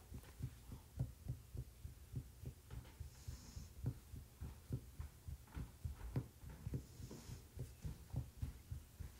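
Faint low thumps, about three or four a second and unevenly spaced: handling noise on the tablet's microphone.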